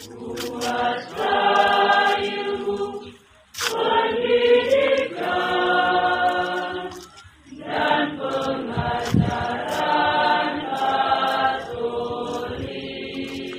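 A group of voices singing together in long phrases, with short pauses about three seconds and seven seconds in.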